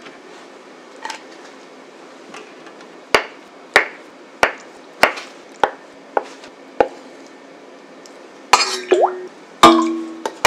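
Kitchen knife chopping through tofu onto a wooden cutting board: seven sharp knocks, evenly spaced a little over half a second apart. Near the end comes a louder metal clatter with a brief ringing tone from a stainless steel saucepan.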